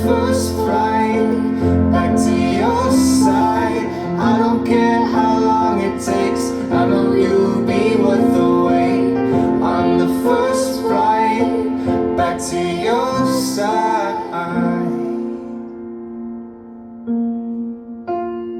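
Pop song playing: a wavering melody line over steady, sustained keyboard chords. About fifteen seconds in the melody drops out, leaving quieter held piano chords.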